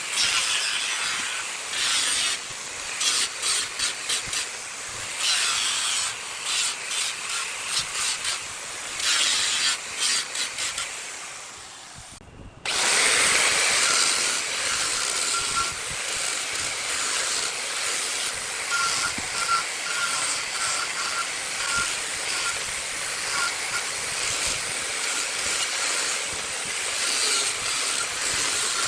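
Woodturning on a lathe: a tool working a spinning piece of jackfruit wood in short, repeated passes of hissing noise. Just under halfway it goes quiet for a moment, then a steady, unbroken hiss of continuous contact runs on.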